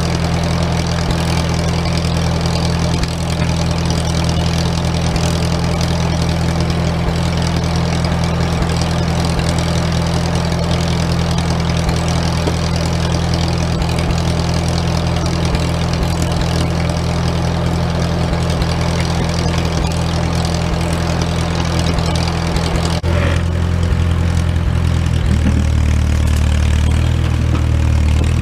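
A large engine running steadily at low speed. Its note changes about three quarters of the way through and shifts again in pitch near the end, as the engine is throttled.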